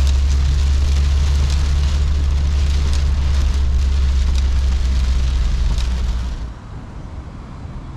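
Heavy rain pattering on the windshield and roof inside the cabin of a Toyota Land Cruiser on the move, over a steady low drone of engine and road. About six seconds in, the rain and the drone drop away sharply, leaving a quieter hum.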